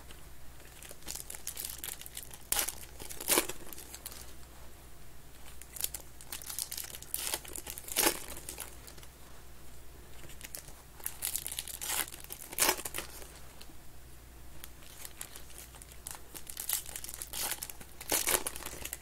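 Foil packs of Panini Contenders football cards being torn open and crinkled by hand, with several sharper, louder crinkles among steady rustling.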